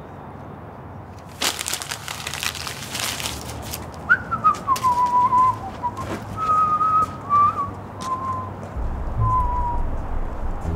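A man whistling a short, casual tune: a single clear whistle that slides down at first, then several held notes. Before it there are a couple of seconds of rustling, and near the end a low rumble comes in.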